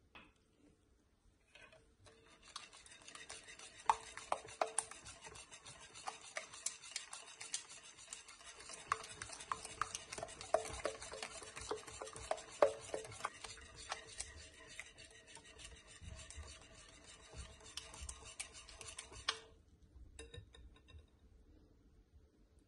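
Wire balloon whisk beating a runny egg mixture in a glass bowl: a steady swishing with scattered clicks of the wires against the glass. It starts about two seconds in and stops a few seconds before the end.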